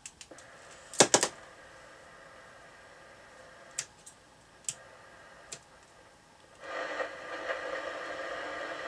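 Clicks of a Moonraker Minor II CB radio's buttons and switches and its hand microphone being handled, with a sharper cluster about a second in and single clicks later. About two-thirds through, the set's speaker opens up with a steady hiss of receiver static.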